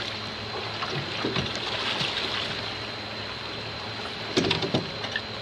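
Water washing against a small boat's hull under a low steady hum, while a striped bass is landed by hand over the gunwale. Two short, loud knocks come about four and a half seconds in as the fish comes aboard.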